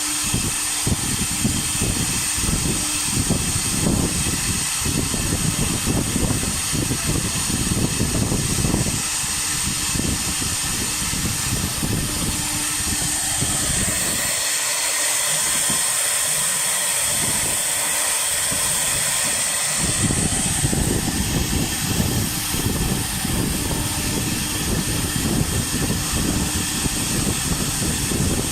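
Air-cooled spindle of a wood CNC router running with a steady high whine and fan hiss while the bit carves MDF, the cutting adding a rough, irregular rumble. The cutting noise stops for several seconds past the middle, leaving the spindle whine and hiss, then resumes.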